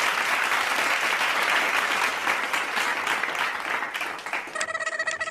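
Applause, many hands clapping in a dense, continuous patter that dies away about four and a half seconds in. A steady pitched tone comes in near the end.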